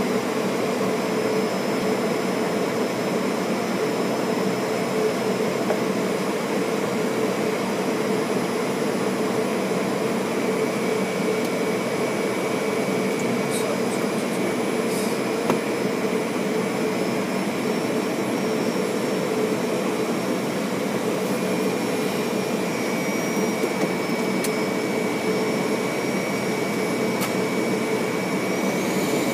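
Steady flight-deck noise of a Fokker 100 airliner in flight on approach. It is a constant rushing hiss of airflow, air conditioning and engines, with several steady whining tones through it.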